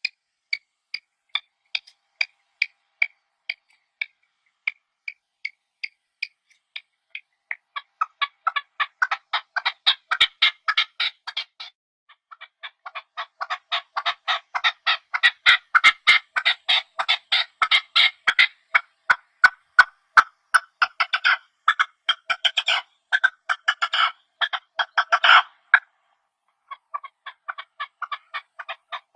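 Partridge calling in a long series of short, sharp notes, about two a second at first, then speeding into a dense, rapid chatter from about seven seconds in. It breaks off briefly near the end, then starts up again.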